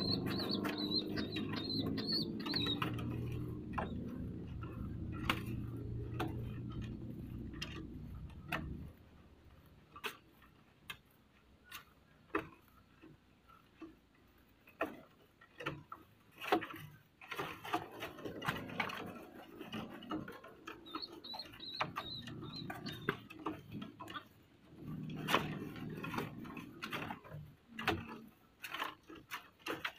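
Pigeon crop-feeding its squab on a slatted wooden cage floor: scattered soft clicks, taps and wing flutters, with a faint high squeaking now and then. A steady low hum runs under the first nine seconds or so, then stops.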